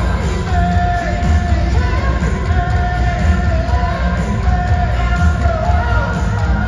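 Live hard rock band playing at full volume: electric guitars, bass and drums with a heavy low end under a male lead vocal singing long held notes that bend in pitch.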